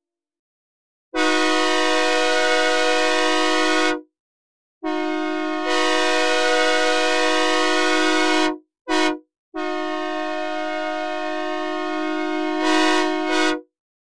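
Synthesizer recreation of a Nathan K3LA three-chime locomotive air horn sounding the grade-crossing pattern: two long blasts, one short blast, then a final long blast. The chord holds steady in each blast, and the last blast swells louder briefly near its end.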